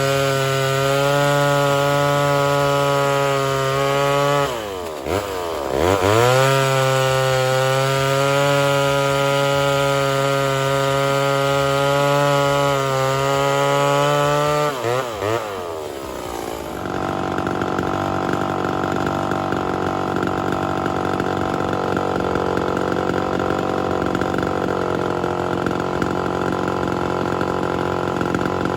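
Homelite Super XL Auto two-stroke chainsaw running at high revs after a rebuild with new crank seals. Its note twice falls off and climbs back as the throttle is let off and opened again. About seventeen seconds in the sound turns to a rougher, steadier running; the owner calls it a good running saw.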